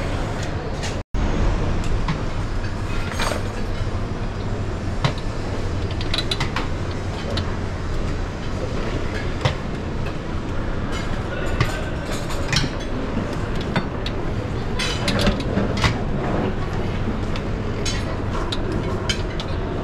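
Airport lounge ambience: a steady low hum with indistinct background chatter and scattered light clicks and clinks, broken by a momentary dropout about a second in.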